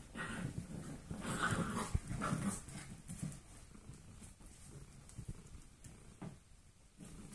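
Eight-week-old golden retriever mix puppies vocalising as they play-fight, in uneven bursts that are loudest over the first three seconds, then quieter with scattered short taps.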